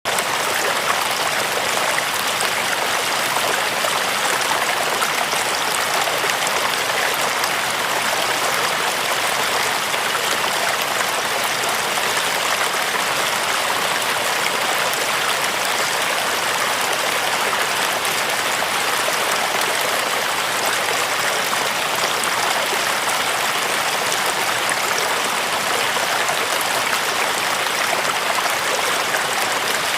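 Flowing water running with a steady rush that does not change.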